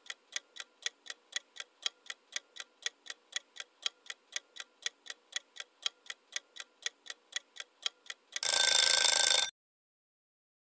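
Countdown-timer sound effect: a clock ticking evenly, about four ticks a second, then a loud alarm bell ringing for about a second near the end to mark time up.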